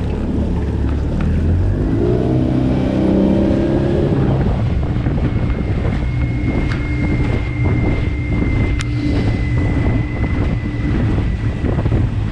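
15 hp Suzuki outboard motor, fitted with a new 12-pitch propeller, revs up as the inflatable dinghy gathers speed about two seconds in, then runs steadily at speed with a thin high whine. Wind buffets the microphone, and there are scattered short knocks as the hull meets the chop.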